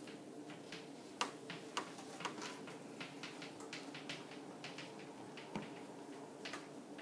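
Chalk tapping and scratching on a chalkboard as words are written: a quick, irregular run of sharp ticks, one to several a second, over a steady low hum.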